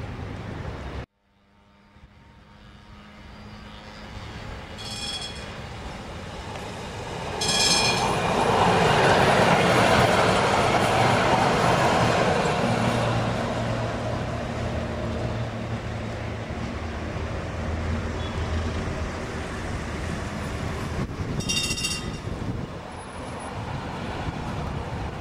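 Duewag tram passing close by: the rumble of wheels on rail and the traction motor hum grow louder as it approaches and stay loud for several seconds before easing off. Three brief high-pitched rings are heard, two in the first half and one near the end.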